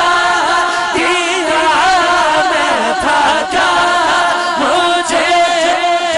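A male voice sings a naat with wavering, ornamented sustained notes into a microphone. Under it a men's backing chorus holds a steady vocal drone. No instruments are involved, and the sound comes through a public-address system.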